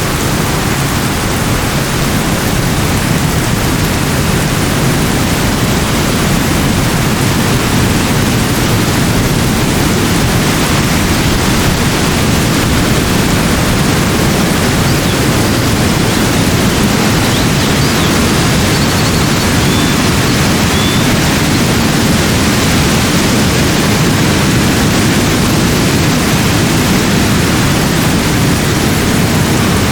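Steady rushing of falling water, like heavy rain or a waterfall, loud and even throughout. A few faint, short high chirps come about two-thirds of the way through.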